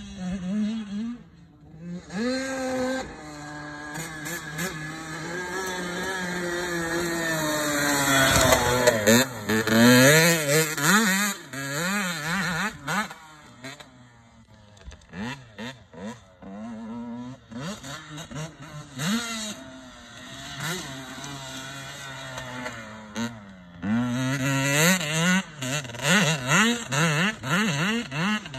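Motocross dirt bike engine revving as it is ridden hard around a dirt track: the pitch climbs steadily for several seconds, then comes quick on-off throttle blips and repeated surges and drops in revs, louder and fainter as the bike comes and goes.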